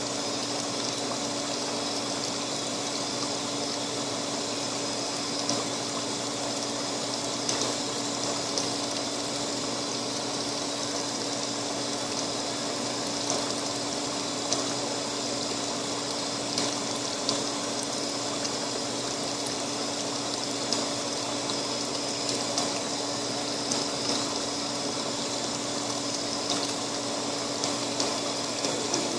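A steady machine-like hum with a rushing noise and one constant low tone, unchanging throughout, with a few faint ticks.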